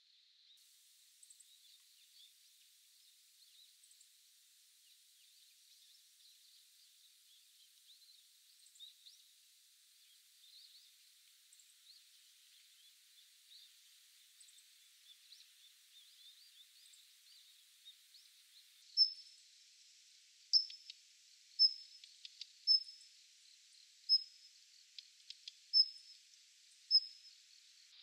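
Daurian redstart calling: a series of about seven sharp, high single calls roughly a second apart, beginning about two-thirds of the way in, with a few softer ticks among them. Before that there is only faint, distant bird twittering.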